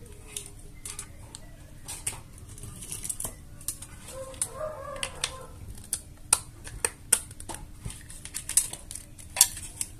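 Irregular sharp clicks and knocks of a hard plastic power adapter case being handled and worked at with metal pliers, coming more often and louder toward the end.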